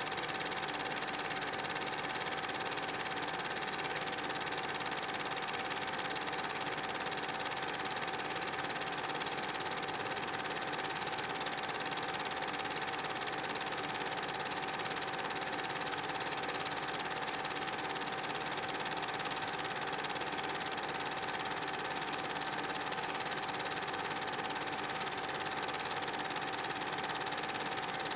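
Steady mechanical whir and hum of a Super 8 film projector running, with a constant hiss.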